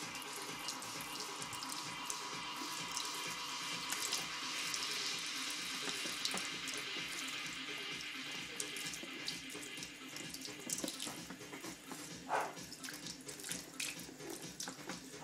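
Kitchen tap running steadily into a sink. From about halfway the sound of the stream turns choppy and uneven as a baby's hands grab at it.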